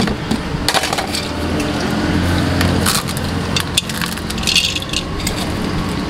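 Hands crushing a samosa and boiled potatoes on a steel plate, then crisp gathiya scattered over them: a run of crackles and light clicks over a steady low hum.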